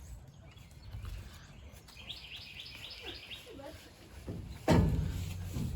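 A small bird chirping a quick run of repeated high notes about two seconds in, then a sudden loud thump near the end.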